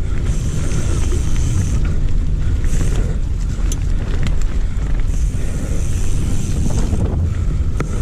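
Wind buffeting the microphone over the rumble of a hardtail mountain bike's tyres rolling fast down a dirt trail, with a few sharp clicks and rattles from the bike.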